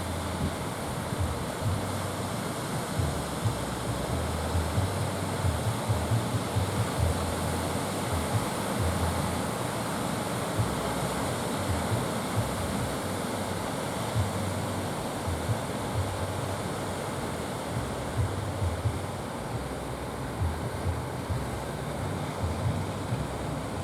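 Sea surf breaking steadily, with strong wind buffeting the microphone in irregular low gusts.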